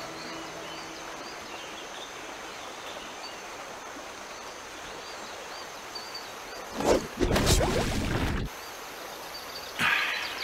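Outdoor woodland ambience: a steady hiss with birds chirping, after music fades in the first second. About seven seconds in, a loud rush of noise lasts about a second and a half, and a shorter burst comes near the end.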